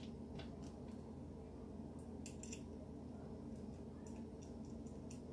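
Faint, scattered small metallic clicks and taps as a rotisserie spit fork is handled and its thumbscrew turned to lock it onto the metal spit rod, over a low steady room hum.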